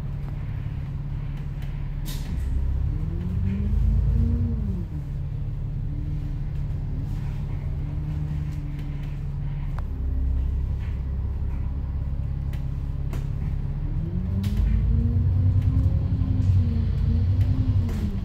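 Bus engine heard from inside the bus, idling and then pulling away. Its pitch rises, drops at a gear change about five seconds in, runs steady, then climbs again in the second half and drops near the end. Light clicks and rattles sound here and there.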